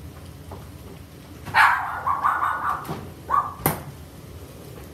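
A dog barking off camera: a long bark about a second and a half in, a shorter one a little later, then a sharp knock.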